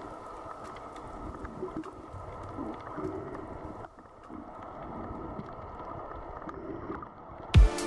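Underwater ambience picked up through a camera housing: a muffled, steady rushing with scattered faint clicks. Electronic music with a heavy beat comes in near the end.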